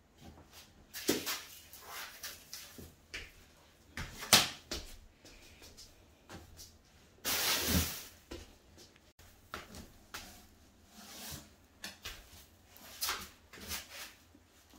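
Scattered clicks and knocks of wooden flat-pack chair parts and small metal pins being handled during assembly, the sharpest knock about four seconds in, with a brief rustle a few seconds later.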